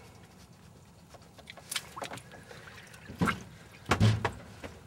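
Short splashes and knocks as hands work steelhead in the water of a boat's livewell, five or so sharp sounds starting about a second and a half in, with a heavier thump near the end.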